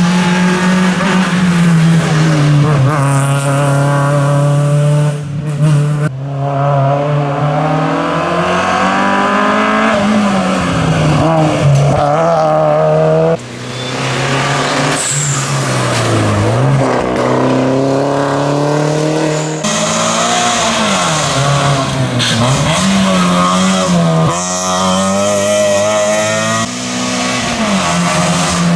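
Rally cars at full racing effort, engines revving hard, their pitch climbing through the gears and dropping again as they brake and turn. Several abrupt changes mark different cars or passes following one another.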